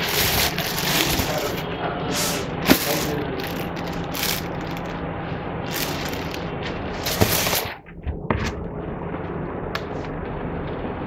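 Knocks and clicks from a top-loading washing machine's lid and body being handled, with rustling, over a steady low hum. The sharpest click comes about a quarter of the way in and another just past halfway.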